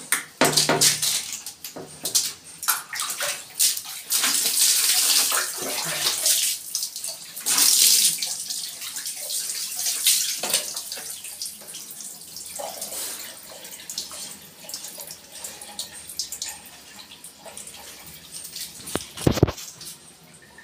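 Water splashing and pouring in irregular bursts as a dog is washed by hand, with wet fur being rubbed in between. A single sharp knock near the end.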